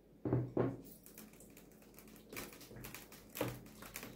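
Light kitchen handling sounds: two sharp knocks about half a second in, then scattered soft taps and clicks, as the cooked oil, tomato paste and mint sauce is spread over pizza dough in a baking tray.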